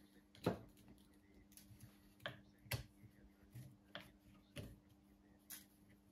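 About seven light, irregular clicks and taps as old pliers and a thin sheet-metal band are handled and worked together to form a homemade piston ring compressor. A faint steady hum sits underneath.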